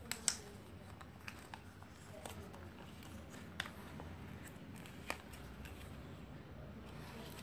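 Origami paper being folded and opened out by hand, with a few short, sharp crackles as it is creased and flexed; the loudest is just after the start.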